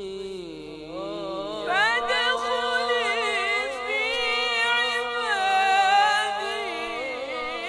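A single voice singing a slow lament, unaccompanied by percussion, in long drawn-out notes that waver and slide, rising into a higher, louder phrase about two seconds in.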